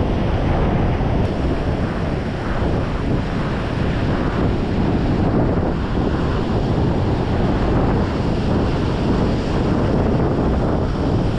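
Wind buffeting the microphone over the steady wash of breaking surf on a rocky shore.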